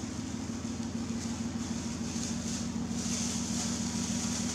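A steady low machine hum, like a running motor, with a thin plastic bag crinkling in short irregular bursts as it is handled and opened.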